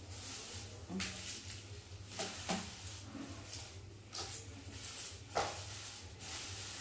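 Water sloshing and splashing in a plastic basin as raw chicken is washed by hand, in irregular bursts, over a steady low hum.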